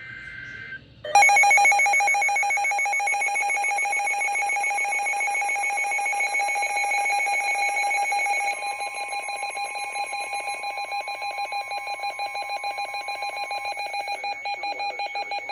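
A weather radio receiver's alert alarm going off for an incoming warning: a loud, buzzy electronic tone pulsing many times a second that starts about a second in. Its character shifts about halfway through, when a fainter steady tone sounds for several seconds.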